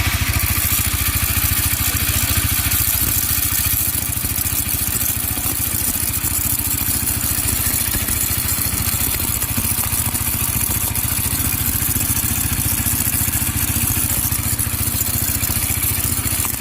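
Suzuki GSX-R150 fuel-injected single-cylinder engine running steadily, with a gritty grinding noise that the mechanic likens to sand grinding inside. He traces it to a worn crankshaft bearing whose balls are worn and cracked.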